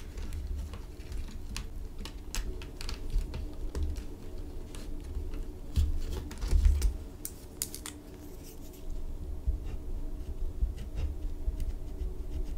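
Irregular small plastic clicks and taps of pens and markers being handled close to the microphone, over soft low bumps.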